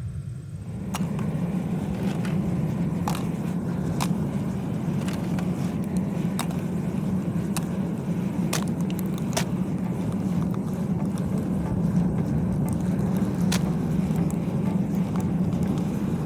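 Propane foundry burner running with a steady rush and low hum, which gets louder about a second in, with scattered sharp clicks over it.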